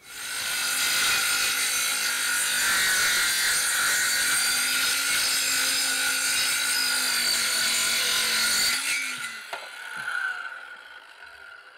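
Power saw cutting through wood for about nine seconds, then released and winding down with a falling whine.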